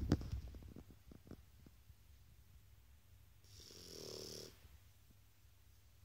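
Shar pei dog snoring in its sleep. A run of crackly snorts fades out over the first second, and about three and a half seconds in comes one longer snore, about a second long, with a hiss on the breath.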